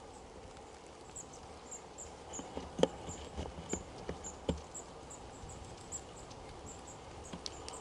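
Quiet forest ambience: a thin, high chirp repeating about three times a second, with a few soft knocks and crunches around the middle.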